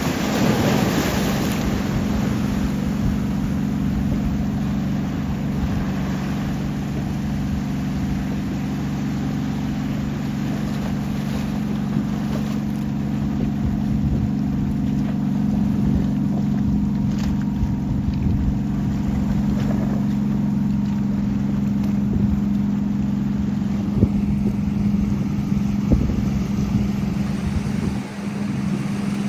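A boat's engine running at a steady pitch as it comes in, over a haze of wind and waves.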